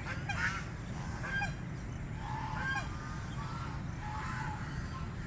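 Ducks calling while feeding: short pitched calls, some dropping quickly in pitch, every second or so, over a steady low rumble.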